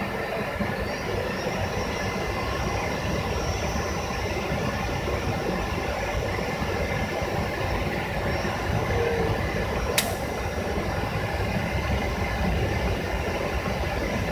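Steady cabin noise of an airliner descending to land: engine rumble and rushing air heard from inside the cabin, with one sharp click about ten seconds in.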